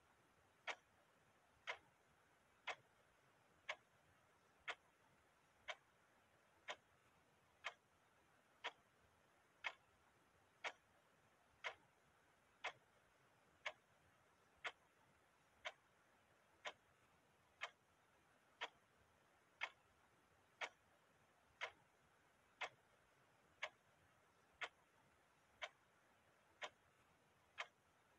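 Clock ticking steadily, one sharp tick each second, every tick alike.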